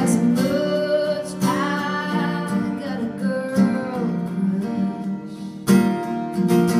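Acoustic guitar strummed while a woman sings long, drawn-out notes over it.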